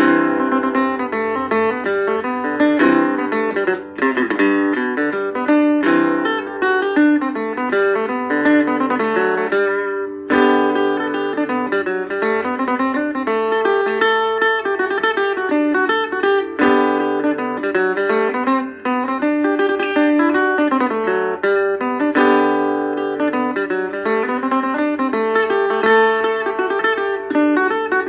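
Royall Teardrop tenor resonator guitar (23-inch scale, four strings) played solo: a continuous tune of quick plucked notes and chords, with a brief break about ten seconds in.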